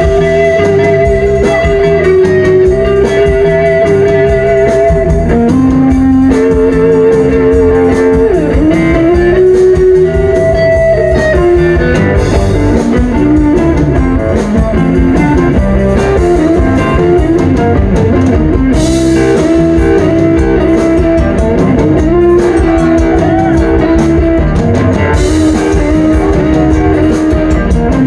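Live blues band playing, with an electric guitar taking a solo of held and bent notes over bass and drums.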